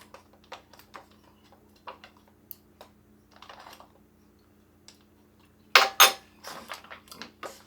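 A spoon stirring rehydrating freeze-dried chili inside a Mylar pouch: light scattered clicks and scrapes, then two sharp knocks in quick succession about six seconds in.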